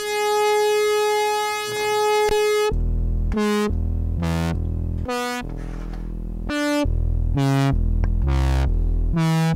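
Analog modular synthesizer voice played from a ribbon controller with sample and hold switched off. A held note lasts about two and a half seconds, then comes a run of short notes at changing pitches. Between the notes the pitch falls to a low tone each time the finger leaves the ribbon, because the pitch CV is not held.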